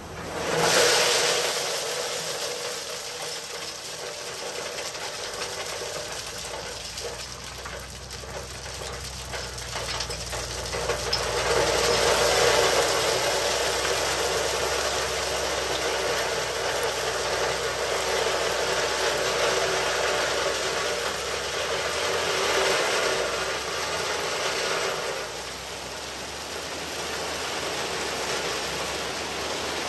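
Dump truck's hydraulic hoist starting up suddenly and running steadily as the bed tilts up. From about ten seconds in, a load of #4 egg rock slides out of the bed and pours onto the pile, and the sound grows louder.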